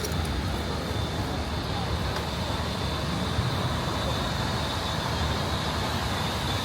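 Steady traffic noise on a busy city avenue: a continuous low rumble of passing cars and trucks.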